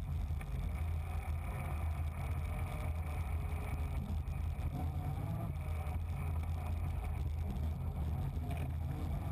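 Safari rally car engine running at speed over the course, a steady low drone.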